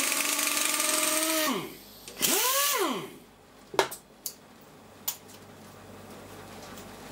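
Pistol-grip pneumatic tool running free at high speed, a steady whine with a hiss of exhaust air, winding down after about a second and a half; a second short burst follows that spins up and winds down again. A few light metallic clicks follow as parts are handled.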